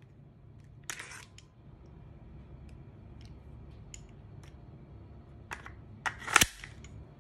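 The metal gas magazine of a WE Desert Eagle L6 airsoft pistol slides out of the grip with a short scraping rattle about a second in. A few light handling clicks follow. Near the end the magazine is pushed back in and seats with a sharp metallic clack, the loudest sound.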